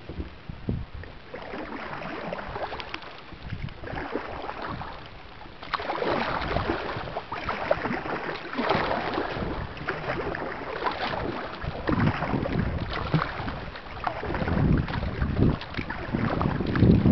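Water swishing and splashing as a kayak is paddled, in uneven surges, with wind rumbling on the microphone. It grows louder about six seconds in.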